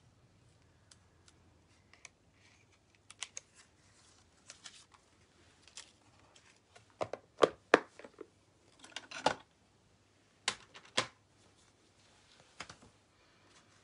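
Cardstock and paper card layers being handled and set down on a craft mat, making scattered light taps, clicks and rustles. They are sparse at first and loudest in a cluster of sharp taps in the middle.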